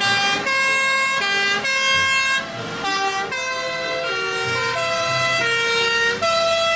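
Two-tone emergency sirens of a convoy of fire engines, several sounding at once out of step, each alternating between a high and a low note.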